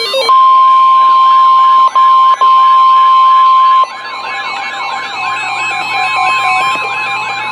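NOAA Weather Radio warning alarm tone: a loud, steady, single high tone, broken twice very briefly, which stops about three and a half seconds in. Under it and after it runs a fast rising-and-falling electronic siren wail, about two sweeps a second.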